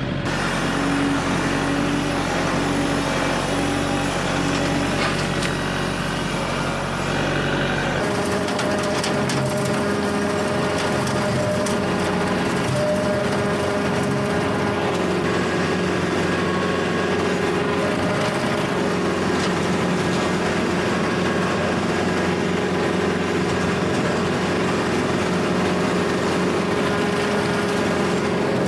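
Kubota L4701 diesel tractor driving a Countyline brush hog, a steady machine drone with whining tones from the cutter's bearings, which are worn and need replacing. The tone of the drone changes abruptly about eight seconds in.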